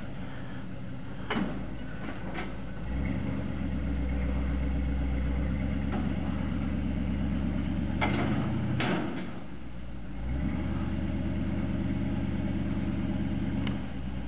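Pickup truck engine running, picking up speed about three seconds in, dipping briefly around nine seconds and rising again. Sharp metal clanks from the towed round-bale carrier as it swings up and takes the hay bale, the loudest a pair about eight seconds in.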